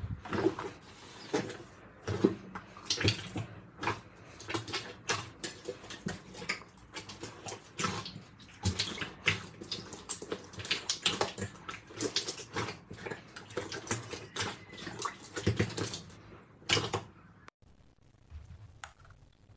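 Slime being squeezed and kneaded by hand: a rapid, irregular run of wet clicks and pops, stopping about three seconds before the end.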